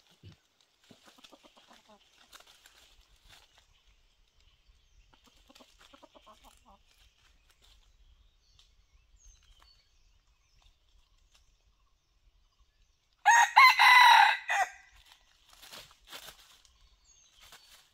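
A rooster crowing once, loud and close, about 13 seconds in, lasting about a second and a half. Before it, soft clucks.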